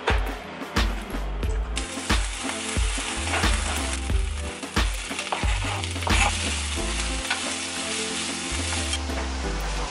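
A kitchen knife chops raw bacon on a plastic cutting board in a few sharp knocks. About two seconds in, a steady sizzle of frying begins as the bacon goes into a hot pan of diced onion. It goes on sizzling while a wooden utensil stirs it, with occasional clacks against the pan.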